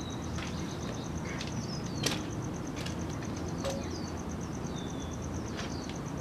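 Tool parts of a motorcycle tire-changing machine being handled: a few separate sharp clicks and knocks as the center tool is taken out. Short falling bird chirps sound in the background.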